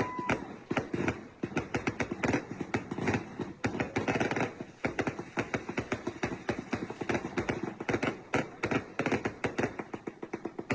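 Firecrackers going off in a rapid, irregular string of sharp pops and cracks, many a second.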